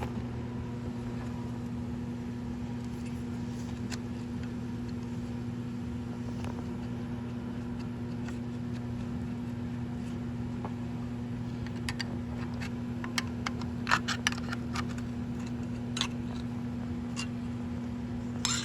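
A steady low electrical hum runs throughout, with a few light clicks and taps of small gas-cap parts being handled, mostly between about 12 and 16 seconds in.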